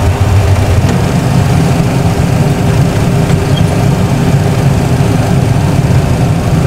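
Boeing 737 Classic cockpit during touchdown and landing roll: a loud, steady low rumble of engine and runway noise.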